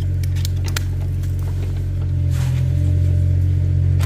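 Kubota excavator's diesel engine running steadily with a low hum. A few light knocks come in the first second.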